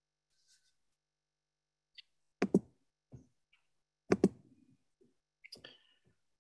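Computer mouse clicked twice in quick succession, twice over, with a few fainter clicks near the end, picked up by the presenter's microphone.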